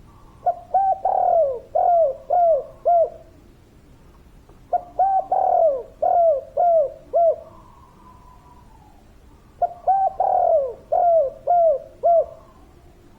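Spotted dove (tekukur) cooing: three phrases of about five quick, downward-bending coo notes each, one near the start, one about four seconds later and one about nine seconds in.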